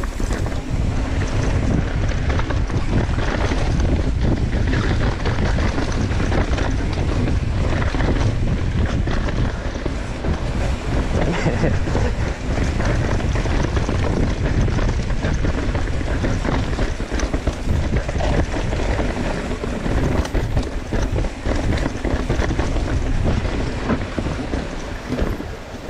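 Wind buffeting the microphone of a bike-mounted camera as a mountain bike descends a dirt singletrack, with tyres rolling over dirt and roots and the bike rattling over bumps.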